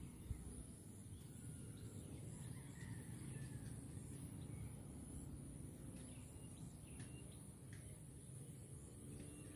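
Faint outdoor ambience: scattered bird calls over a low rumble, with a steady high-pitched tone throughout.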